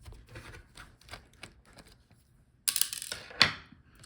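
Light clicks of a small screwdriver backing screws out of a laptop's cooling fan. About two and a half seconds in comes a louder scraping rustle lasting under a second.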